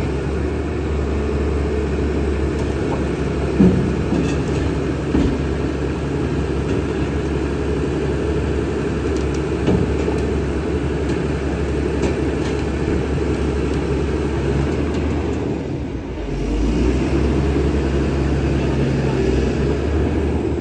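Sany SY365H crawler excavator's diesel engine running steadily, with a few short knocks. About 16 seconds in the engine note dips briefly, then comes back louder and deeper.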